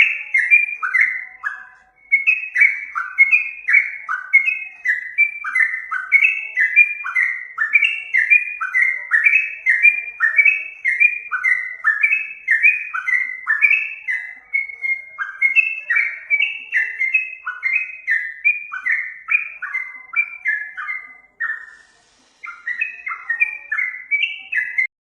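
Yellow-vented bulbul (trucukan) singing a long string of short notes, each sliding down in pitch, about two a second, with two short pauses along the way.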